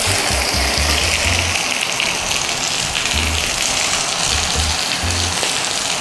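Chicken legs frying skin-side down in a hot steel frying pan on a gas burner, a steady sizzle, over background music with low bass notes.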